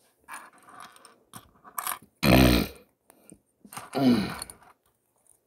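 Two short, low wordless grunts from a man, a louder one about two seconds in and a second with a falling pitch about four seconds in, while he presses Lego suspension and axle pieces together. A few small plastic clicks of the bricks come just before the first grunt.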